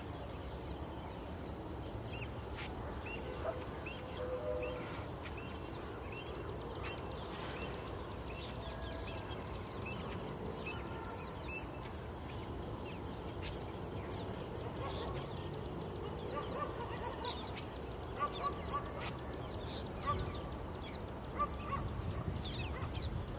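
Outdoor ambience of insects trilling in repeated pulsing bursts of about a second each, with many short bird chirps and calls over a steady low background noise.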